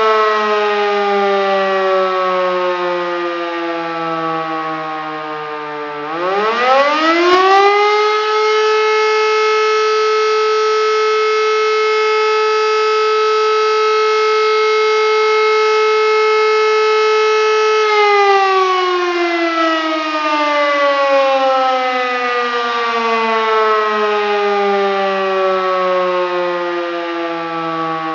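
E57 electric motor siren sounding the fire-alarm signal: the pitch is falling as it winds down, then about six seconds in it runs up steeply to a steady wail held for about ten seconds, and winds down again over the last ten seconds.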